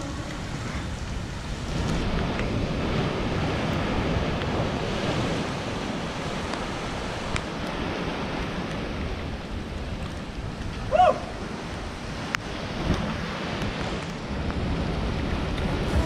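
Surf breaking on a rocky shoreline with wind, a steady rushing wash of sea noise. About eleven seconds in, a single short high-pitched call sounds over it.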